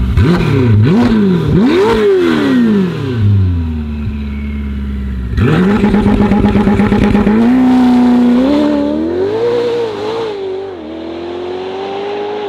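Ferrari F8's twin-turbo V8 through a Novitec sport exhaust: several quick free revs, a brief idle, then a sudden launch with rapid crackling. The note climbs and steps down at each upshift as the car pulls away, fading with distance.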